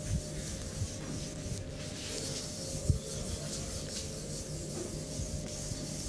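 Massage: hands rubbing and stroking over skin, an uneven brushing hiss that swells and fades, with soft low thuds and one sharp tap about three seconds in.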